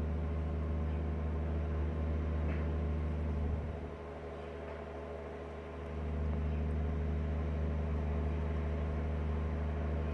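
A steady low mechanical hum, which drops in level for about two seconds midway and then comes back.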